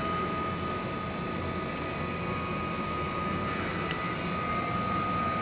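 Steady machine-like drone with a constant high-pitched whine over it, unchanging throughout.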